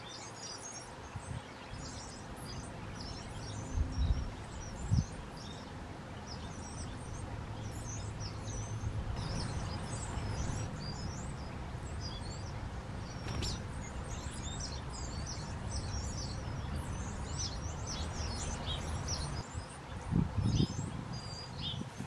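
Small songbirds chirping and twittering, many short high calls overlapping, over a steady low rumble. A few low thumps stand out about four seconds in and again near the end.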